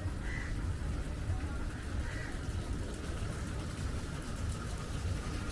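Wind buffeting the microphone: a steady, gusting low rumble, with faint voices in the background.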